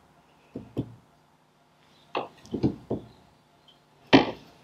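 Sharp knocks on the back plate of a Ferguson TE20 dynamo as it is tapped to free it from the body: a pair, then a quick run of three, then a single louder knock near the end.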